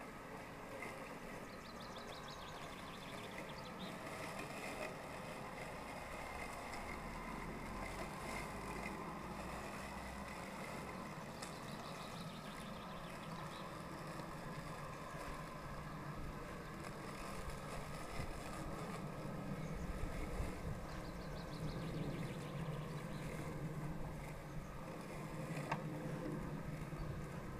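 Worx Landroid robotic lawnmower running as it cuts grass along the lawn edge: a steady, faint whine of its electric blade and drive motors, with a low rumble added in the second half.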